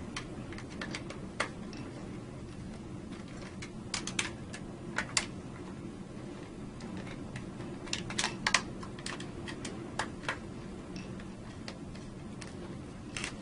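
Irregular light clicks and taps of hand tools and screws on the metal and plastic parts of a circuit breaker, some in quick clusters, over a steady low hum.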